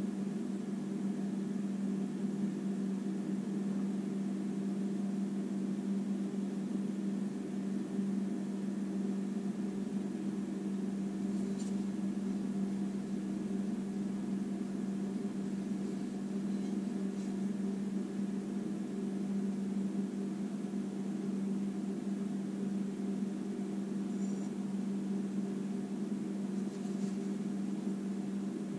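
Steady low mechanical hum with a constant pitch, as from a motor or fan running, with a few faint ticks.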